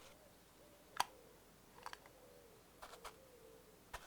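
Faint, sparse clicks and taps: one sharper click about a second in and a few softer ones later, over a faint wavering tone.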